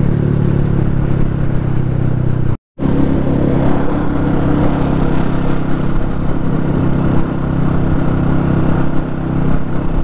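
Motorcycle engine running steadily at highway cruising speed, under a steady rush of wind on the helmet-mounted microphone. The sound cuts out completely for a fraction of a second about two and a half seconds in.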